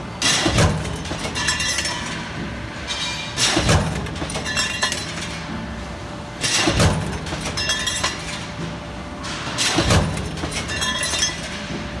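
Punch press with a progressive die stamping steel bracket connectors from coil strip: four metal-on-metal blows about three seconds apart, each ringing briefly, with lighter metallic clinking between strokes.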